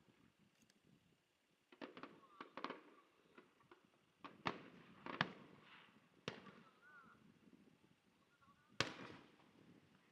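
Fireworks going off at a distance: a scattered series of sharp bangs and cracks at irregular intervals, the loudest one near the end.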